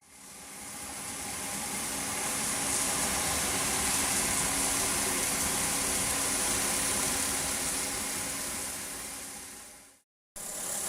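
Robot-held milling spindle running steadily while cutting polystyrene foam, a high whine over a hiss. It fades in at the start and fades out near the end, then breaks off in a short silence before starting again.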